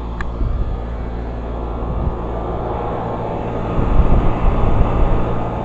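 Old Carrier 38BRC central air conditioner condensing unit running, with a steady compressor hum and condenser fan noise, growing louder and rougher about four seconds in.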